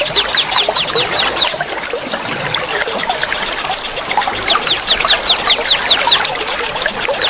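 Many wild birds chattering together in a dense, continuous babble. Twice a rapid run of high, down-slurred whistled notes, about six a second, rises above the babble: once at the start and again from about four and a half seconds in.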